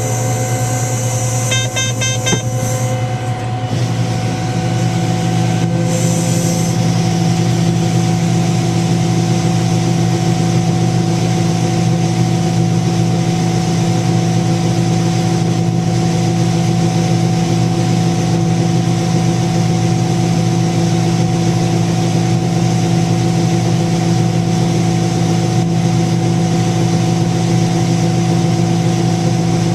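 Diesel engine of large John Deere harvest machinery running steadily. There is a quick run of high beeps about two seconds in, and the engine note rises and fills out about four seconds in.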